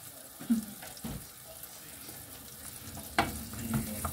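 Mushrooms sizzling in butter in a frying pan, a faint steady hiss, with a dull knock about half a second in. From about three seconds in, a wooden spoon clacks against the pan as the mushrooms are stirred.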